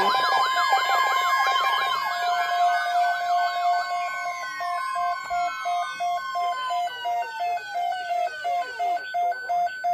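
Sirens sounding: a fast warbling wail settles into a long tone that winds down, falling in pitch, over the last few seconds. From about halfway through, a steady beeping tone pulses about twice a second.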